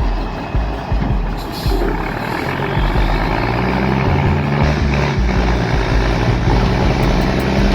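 Diesel engine of a fully loaded log truck labouring up a steep climb, a loud, steady, deep engine note.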